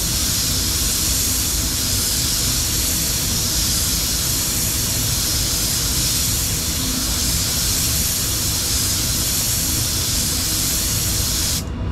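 Compressed-gas blow gun hissing steadily as it blows a wet sample dry; the hiss cuts off abruptly near the end.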